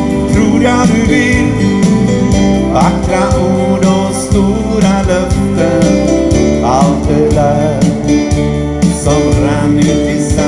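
Live rock trio playing an instrumental passage: electric guitar through a Vox amp, bass guitar and drum kit, with the guitar sliding notes up in pitch about three and seven seconds in.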